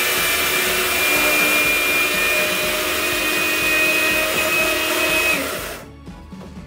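Two small electric blade coffee grinders running at once, grinding dry-roasted coriander seeds: a steady motor whine over a loud whirring hiss, stopping about five and a half seconds in.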